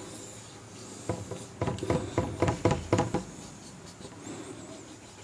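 A pen drawing a diagram: a quick run of about ten short scratchy strokes, from about a second in until about three seconds in.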